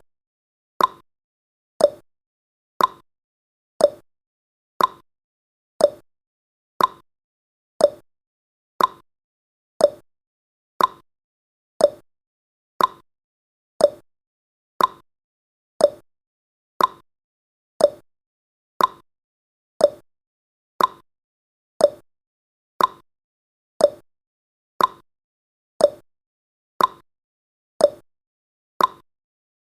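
Countdown timer's ticking sound effect: a short, sharp clock-like tick once every second, the ticks alternating slightly in pitch like a tick-tock, with silence between them.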